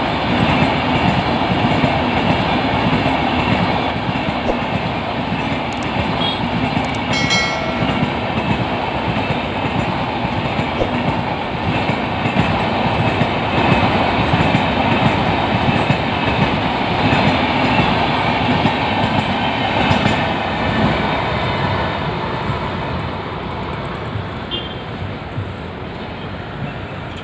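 Shatabdi Express LHB passenger coaches rolling past at speed: a steady rumble and clickety-clack of wheels on the rails. A brief high-pitched tone sounds about seven seconds in, and the rumble grows fainter over the last few seconds.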